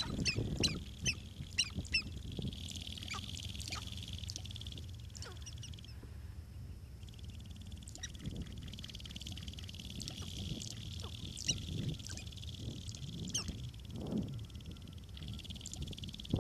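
Sharp-tailed grouse calling: a scatter of short, sharp, cackling calls, densest in the first two seconds, with a quick run of ticks about eight seconds in. A steady high buzz runs behind them.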